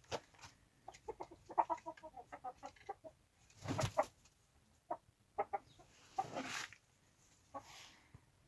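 Domestic chickens clucking: a quick run of short clucks, then a few more spaced-out clucks, with a couple of brief scratchy rustles in between.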